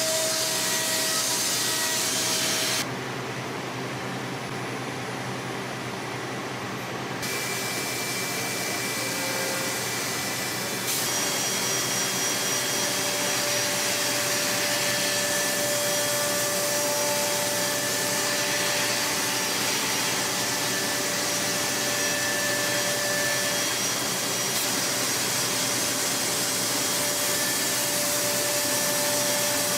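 Five-axis CNC machining centre milling aluminium at high speed. A steady cutting hiss carries thin, high whining tones from the spindle and cutter. The level and pitch change abruptly a few times in the first ten seconds, then hold steady.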